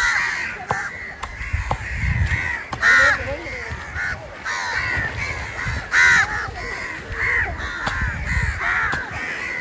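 Crows cawing over and over, several calls overlapping, over a low background rumble.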